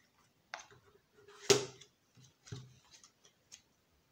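Oracle cards being handled over a table: a few light clicks and card-on-card taps, with one sharper tap about a second and a half in.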